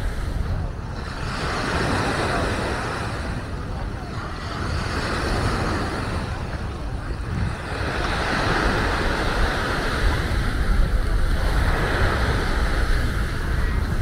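Small waves washing onto a sandy beach in a steady hiss, with wind rumbling on the microphone and people's voices mixed in.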